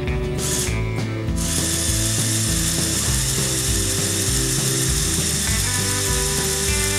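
Lepin 20056 tow truck's electric motor and plastic gear train running the crane winch, a steady mechanical whirr that starts about a second in as the hook pays out, heard over background music.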